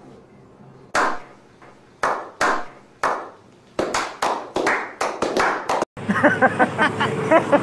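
Slow clap: single hand claps about a second apart that speed up into quicker clapping, then cut off abruptly about six seconds in.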